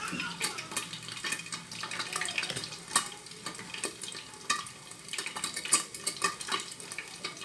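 Boiled eggs frying in hot oil in a pan covered with a glass lid: a steady sizzle broken by irregular sharp pops as the oil spatters.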